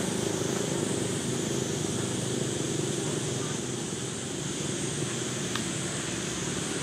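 Steady outdoor background noise: a low rumble with a high, even hiss above it, and a faint click about five and a half seconds in.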